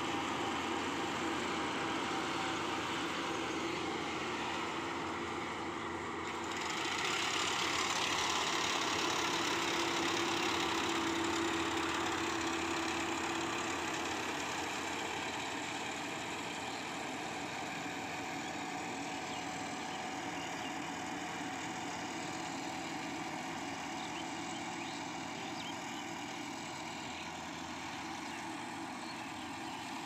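Yanmar crawler combine harvester running under load as it cuts rice, a steady engine-and-machinery drone. It gets louder about seven seconds in, then slowly fades a little.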